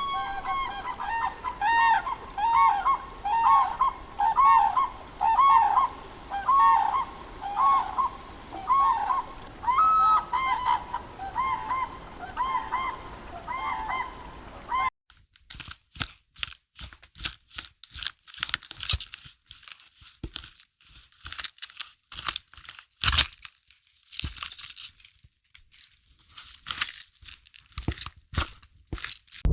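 Several birds calling over and over in short, arched calls, overlapping. About halfway through the track cuts to a different sound of irregular sharp clicks and crackles.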